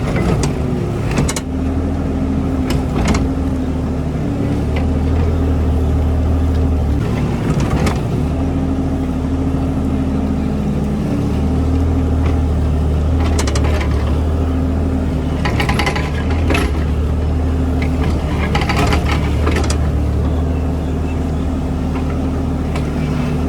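Diesel engine of a mini JCB running steadily under working load, its pitch stepping up and down as the load changes. Several sharp knocks are scattered through it.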